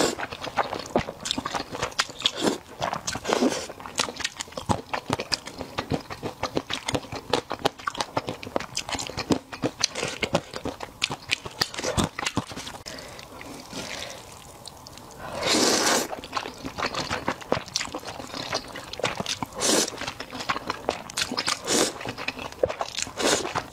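Close-miked mouth sounds of eating black bean sauce noodles: wet chewing with many small clicks, and slurps of noodles, a long loud one about two-thirds of the way through and shorter ones near the end.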